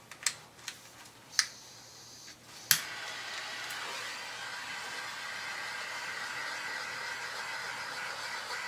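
A handheld torch is clicked a few times, then catches with a sharp click about three seconds in, and its flame hisses steadily.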